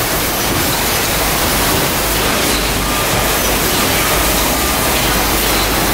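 Steady, even machinery noise of a running packaging line: conveyors and a palletizer at work, with faint thin whines above the din.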